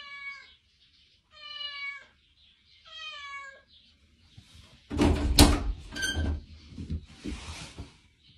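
A kitten meows three times behind a closed door, each meow about half a second long and falling slightly in pitch. About five seconds in comes the loudest part: a thunk and a run of knocking and handling noise as the door is opened.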